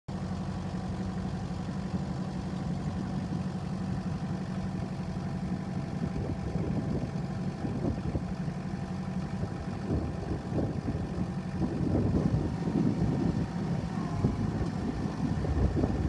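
Kubota M59 backhoe loader's four-cylinder diesel engine idling steadily, with gusts of wind noise on the microphone growing over it in the second half.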